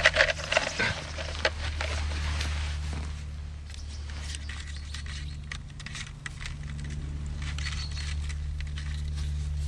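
A glass milk bottle set down on rock, with light clinks in the first second, then faint scattered rustles and ticks over a steady low hum.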